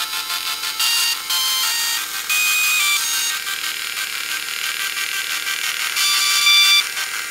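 Dot matrix printer playing a tune: its print head and mechanism, driven from MIDI, buzz out a run of held notes that change pitch every fraction of a second, over a raspy mechanical hiss, louder in short stretches.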